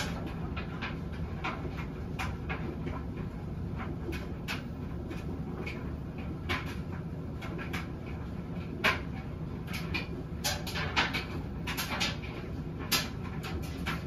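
Front-load washing machine tumbling a load of laundry: a steady low hum from the turning drum, with irregular soft knocks and clicks as the clothes drop and fasteners strike the drum.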